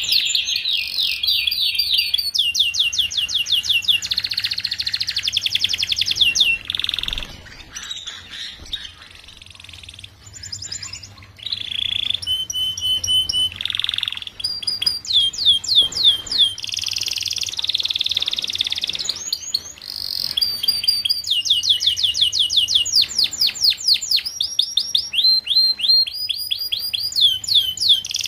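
Domestic canary song: long runs of fast, repeated trills and whistled notes, one phrase type rolling into the next, with a quieter lull about a third of the way through.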